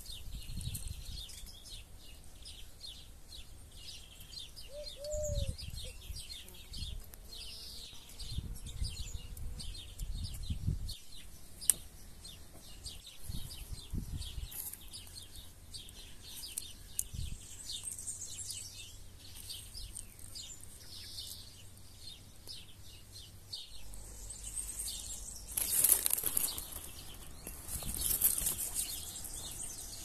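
Small birds chirping and twittering, with low rumbles now and then, a single sharp click near the middle and a louder rushing, rustling noise near the end.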